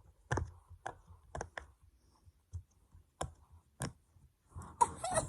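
Freshly washed silicone pop-it fidget toy having its bubbles pressed one at a time, giving separate sharp pops at an uneven pace, with a louder burst near the end.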